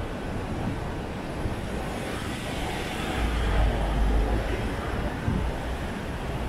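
City street noise with a heavy vehicle passing: a low rumble swells about three seconds in and fades near the end.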